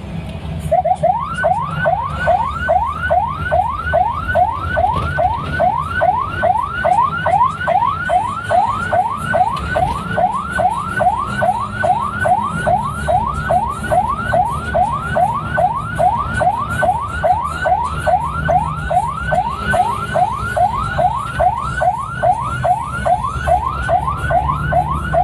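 Electronic vehicle siren sounding a rapid rising wail, about two sweeps a second, starting about a second in. Under it is the low steady hum of the car's engine and road noise in the cabin.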